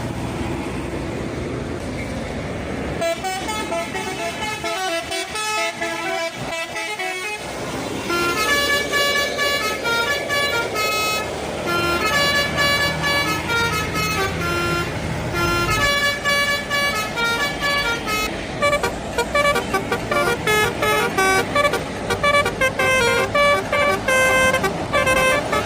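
Bus telolet horns playing melodic runs of stepped notes, several pitches sounding together, over the low running of bus engines. In the last third the notes come as quick, short toots.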